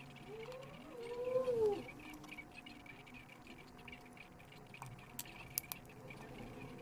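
A short animal cry about a second in, rising and then falling in pitch, followed by a few faint clicks.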